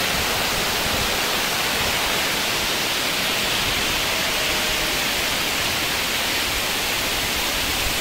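Waterfall: the steady, even noise of falling water, with no change throughout.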